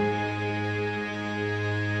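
Background music holding a sustained chord, with no new notes struck.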